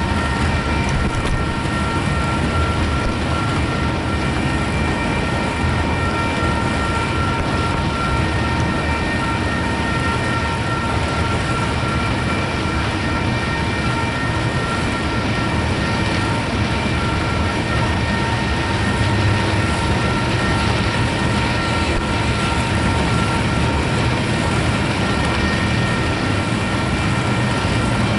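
Freight train cars rolling past: a steady rumble of steel wheels on rail, with several steady high-pitched tones ringing over it.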